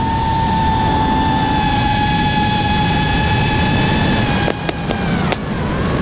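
FPV racing-drone motors whining at a steady high pitch over wind rush, the pitch sinking slightly about five seconds in as the throttle eases. A few sharp clicks come near the end.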